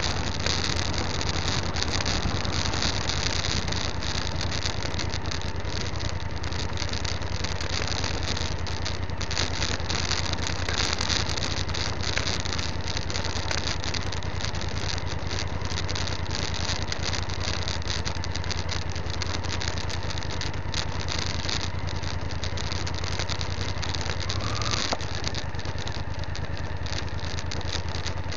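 Motorcycle engine running steadily on a loose gravel track, with wind noise and a scatter of clicks and rattles over it. About three-quarters of the way through, the engine note briefly rises and then settles again.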